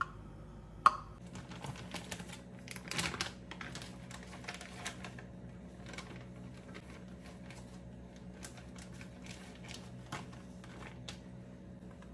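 Beaten egg cooking in a nonstick frying pan on a gas hob, crackling with irregular small ticks that are thickest a few seconds in. A single sharp click about a second in, and a steady low hum underneath from then on.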